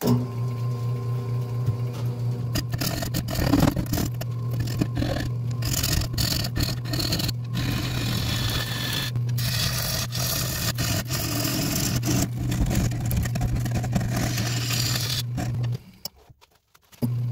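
Nova 3000 wood lathe running with a steady low hum while a bowl gouge cuts the spinning acacia blank, giving an irregular scraping broken by frequent sharp knocks. The sound cuts out for about a second near the end, then returns.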